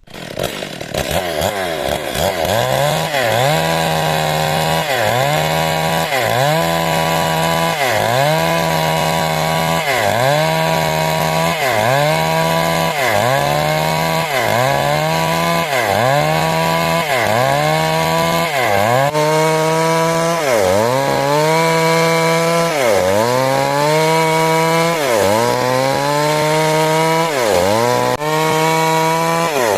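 A 382 two-stroke chainsaw cutting wood at high revs. The engine note comes up just after the start, then sags and recovers again and again, about every one and a half to two seconds, as the chain bites into the timber and frees.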